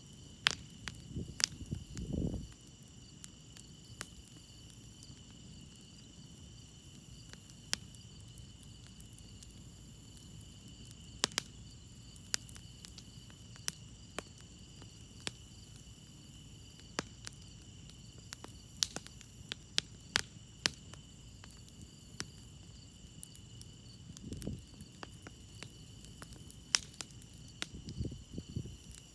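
Campfire crackling, with sharp pops scattered irregularly over a steady high-pitched chirring of crickets. A few brief low rumbles come near the start and again near the end.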